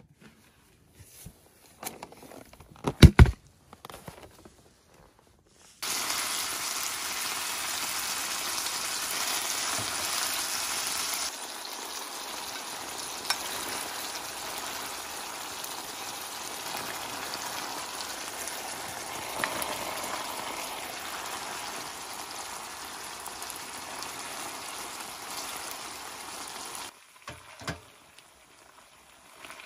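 Thinly sliced marinated meat sizzling in a square pot on a portable stove: a steady frying hiss that starts suddenly about six seconds in, eases slightly a few seconds later and stops shortly before the end. Before it, a few clicks and one sharp knock of camping gear being handled.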